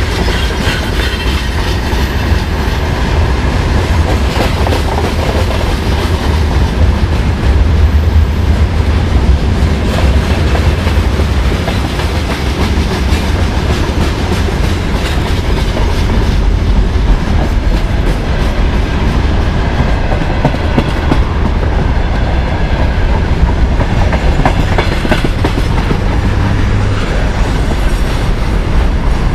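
Freight train wagons (boxcars, open gondolas, then container flatcars) rolling past, their wheels clattering over the rail joints in a loud, steady run of clicks and rolling noise.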